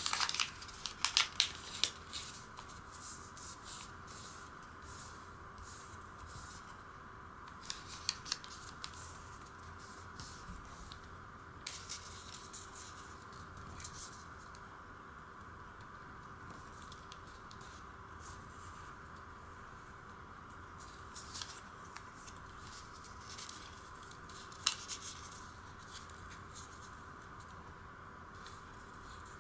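Origami paper rustling and crackling as it is folded and creased by hand. It is busiest in the first two seconds, with scattered crackles later, over a steady hiss.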